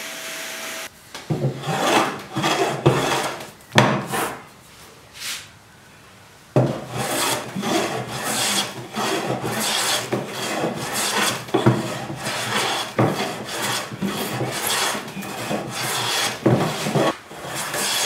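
A steady machine hum cuts off abruptly about a second in. Then a hand tool scrapes and rasps along wood in many short strokes in quick succession, with a lull of about two seconds near the fifth second.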